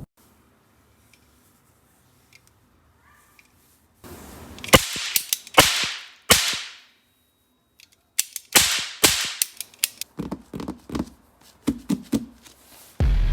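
Plastic toy-gun packaging and parts being handled, starting about four seconds in: a run of sharp plastic clicks and snaps, some followed by short crinkling.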